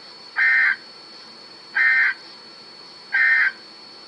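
Three short Emergency Alert System (SAME) end-of-message data bursts, the warbling digital squawk that closes an EAS weather radio warning, each about a third of a second long and evenly spaced about a second and a half apart.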